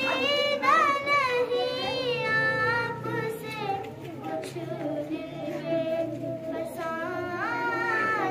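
A young girl singing a naat solo into a microphone, in long held notes that waver and glide in pitch.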